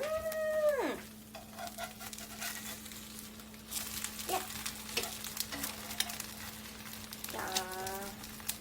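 Eggs frying in a pan over low heat, sizzling quietly, with scattered clicks and scrapes as a utensil works them and breaks the yolks. A short pitched vocal note sounds at the start and another near the end, over a steady low hum.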